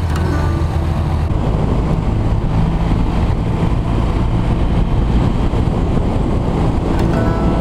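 Air-cooled BMW flat-twin motorcycle engine running steadily while riding, with wind rush on the microphone. The sound changes about a second in to a rougher mix of engine and wind, and there is a brief sharp click near the end.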